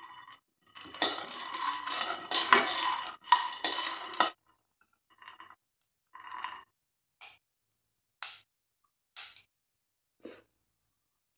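Steel spoon stirring shelled peanuts in a nonstick pan: the peanuts rattle and the spoon scrapes the pan densely for about three seconds, starting about a second in, then a few short separate scrapes and clinks.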